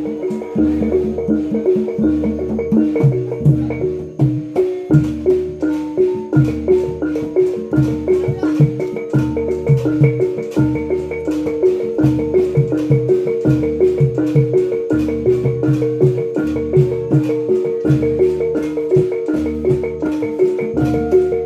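Javanese gamelan accompaniment for reog dance: bronze kettle gongs and metallophones played with mallets in a fast, repeating melodic pattern over a quick, steady beat, with low strokes recurring in a regular cycle.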